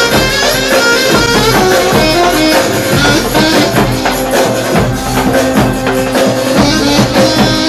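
Loud music with a steady percussive beat under a melody.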